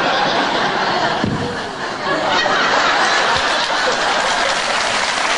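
Studio audience laughing, with clapping rising about two seconds in.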